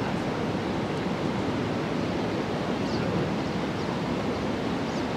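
A steady rushing noise that holds an even level throughout, with a few faint, short high chirps about three seconds in.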